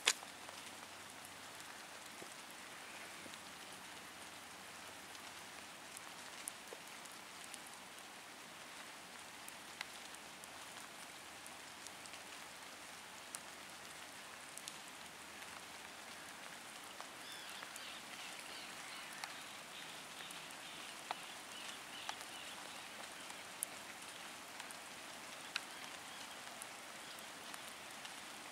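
Faint steady patter of rainwater with scattered small drop ticks. Faint high chirps come and go between about 17 and 23 seconds in.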